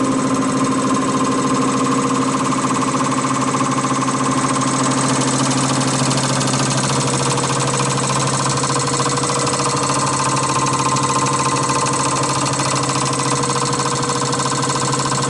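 Common rail injector test bench running a 100 MPa injection test: the motor-driven high-pressure pump hums steadily while four Bosch 0445120224 injectors fire with a fast, even ticking. The hum's pitch shifts slightly about halfway through.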